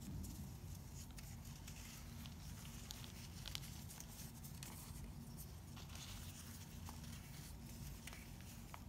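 Fingers crushing and crumbling chunks of layered, pressed baking soda: faint soft crunches and powdery crumbling, scattered and irregular, over a steady low hum.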